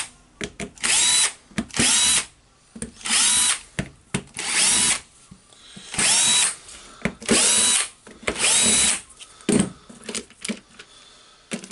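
Cordless electric screwdriver run in about six short bursts, each spinning up quickly to a steady whine, with small clicks between: screws being backed out to open a power tool's housing.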